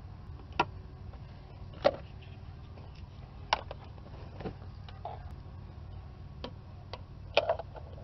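Irregular sharp plastic clicks and taps from fingers working a wiring harness connector and multimeter test probes, about eight in all, over a steady low hum.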